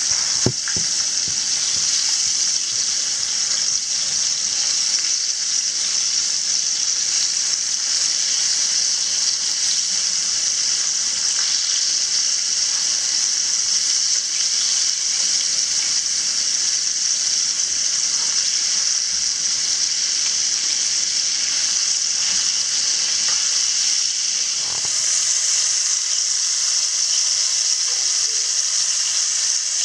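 Battered snowshoe hare pieces frying in hot oil in a cast-iron skillet: a steady, loud sizzle.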